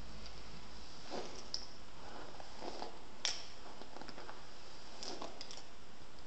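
A hairbrush drawn through long hair and hands gathering it into a ponytail: a few faint, brief brushing rustles over steady background hiss.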